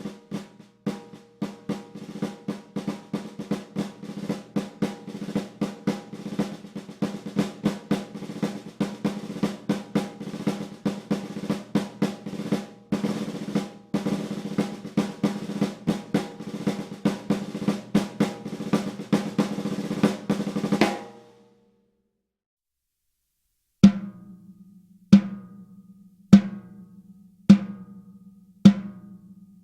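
Tama Artwood solid maple 14x8-inch snare drum played with sticks: about twenty seconds of fast rolls with louder accented strokes, the shell ringing low under the snare-wire buzz. Then a short pause, followed by single strokes about a second and a quarter apart.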